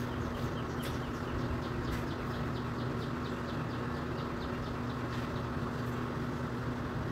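Steady low machine hum, with a quick run of faint high chirps, about three a second, for most of the first five seconds.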